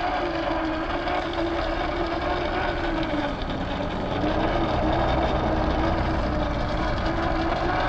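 Electric motor and gear drive of a 1/10-scale RC crawler whining as it wades through muddy water. The pitch dips and recovers with the throttle about three seconds in and again near the end, over the slosh of the water.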